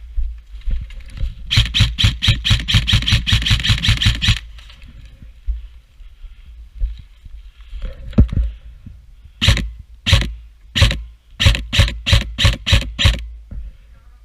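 Airsoft guns firing: a rapid string of about twenty sharp shots over nearly three seconds, then about nine separate shots spaced a fraction of a second apart near the end, over a low rumble.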